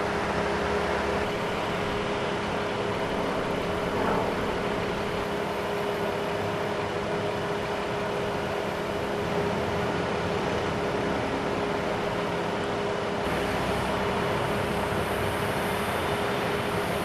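Steady vehicle noise from idling emergency vehicles and road traffic, with a constant hum running under it.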